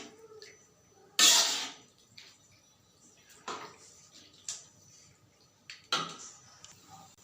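Cooking handling sounds: a few separate short clatters or scrapes of pots, utensils or water, the loudest about a second in and smaller ones spread through the rest.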